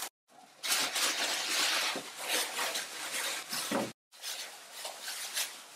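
Plastic food packaging crinkling and rustling as it is handled on a countertop. The sound breaks off abruptly about four seconds in, and quieter handling noises follow.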